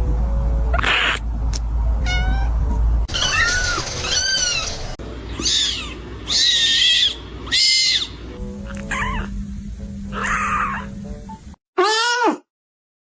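Kittens meowing again and again: a string of short, high, arching mews. A steady low hum runs under the first few seconds, and a last clear mew comes just before a brief silence near the end.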